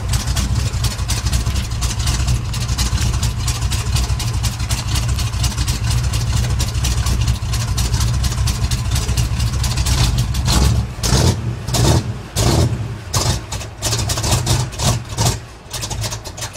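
406 big-block Chevy V8 in a mud truck running loud and steady with a dense, rapid exhaust beat while its carburettor is being tuned. About ten seconds in the running turns uneven, coming in separate surges, and it fades away near the end.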